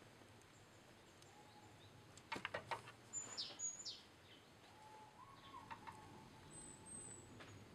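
A quick run of sharp clicks and knocks from the chainsaw and hand tools being handled on the bench, about two seconds in. Short high bird chirps sound soon after and again near the end, over faint outdoor background.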